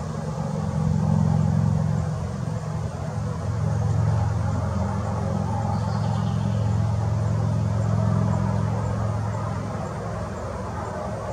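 Low, steady engine hum, growing louder and easing off a few times.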